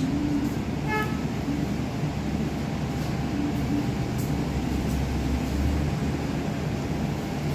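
Steady background rumble and hum, swelling a little in the second half, with one short pitched tone about a second in.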